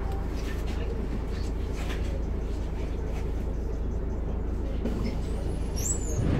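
A bus's diesel engine heard from on board, a steady low drone with road noise and light, scattered rattles.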